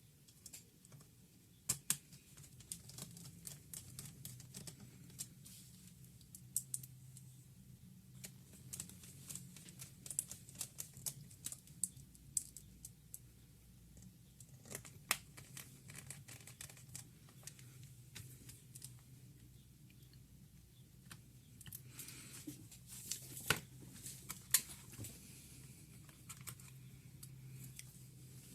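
Scattered light clicks and taps of small laptop parts and tools being handled, with a louder cluster of clicks near the end, over a low steady hum.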